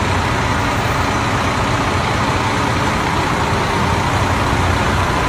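Coach bus's diesel engine idling with a steady, even rumble, heard close to the rear of the bus.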